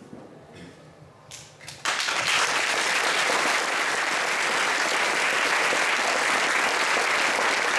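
A large audience applauding: a few scattered claps, then full applause breaking out about two seconds in and carrying on steadily.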